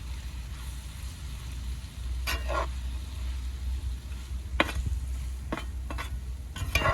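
Food sizzling in a frying pan while a utensil stirs it, with about five short scrapes against the pan, the last ones close together near the end.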